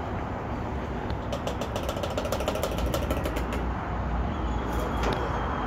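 Steady low rumble of nearby vehicle engines, with a quick run of light ticking and rustling from about a second in to past the middle, and a few more ticks near the end.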